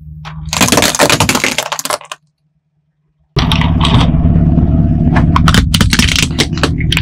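A car tyre rolling over and crushing a row of plastic whistles: a dense run of cracking and snapping over a low steady engine hum. After a short silence the car's engine runs louder, with more sharp cracks and crunches as the tyre rolls onto a plastic toy.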